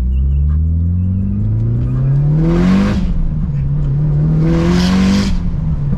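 Turbocharged Mitsubishi Evo 8 four-cylinder accelerating hard through two gears, its pitch rising and then dropping at each shift, about 3 s and 5 s in. Near the top of each gear a loud hissing whoosh from the screamer pipe venting wastegate gas to open air.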